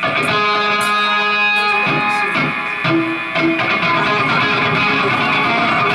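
Live rock band playing, with electric guitar out front and no vocals yet.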